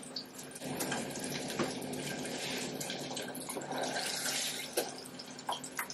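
Plastic bag rustling and crinkling as hands rummage in it, with small clicks, over a steady low hum.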